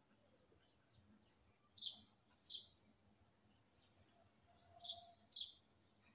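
Faint, short bird chirps, about five of them in loose pairs, each a quick downward call with a thin high note after it, over near silence.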